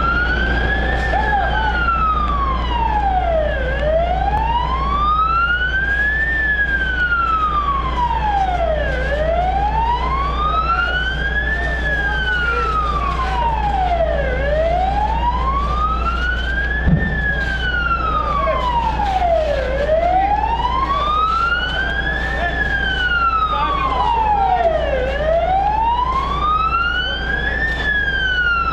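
Emergency vehicle siren in a slow wail, its pitch rising and falling evenly about every five seconds, over a steady low rumble, with one short knock partway through.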